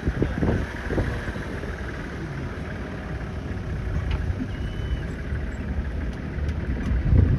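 A vehicle's engine running with a steady low rumble, a few knocks near the start and end, and a short whistled bird call about four and a half seconds in.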